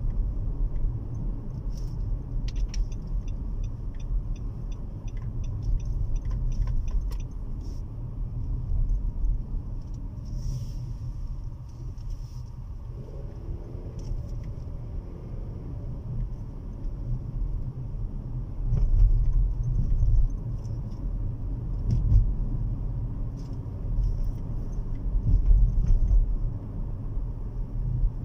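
Road noise inside a moving car's cabin: a steady low rumble of engine and tyres that swells now and then, with scattered light clicks and ticks.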